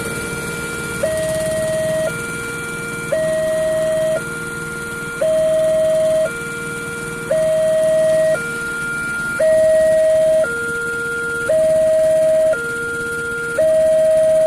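Railway level-crossing warning alarm from the loudspeaker on the signal post: two electronic tones, a higher and a lower, alternating about a second each in a steady repeating pattern. It warns that a train is approaching while the crossing barrier is lowered.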